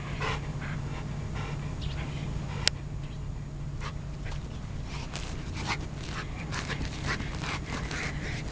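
Golden retriever panting and whimpering in quick, short breaths, excited by its toy, with one sharp click a little under three seconds in.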